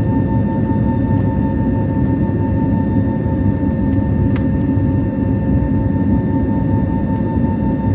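Airbus A320neo cabin noise: a steady rumble of engines and airflow with a steady pitched tone running over it. A faint click sounds about four seconds in.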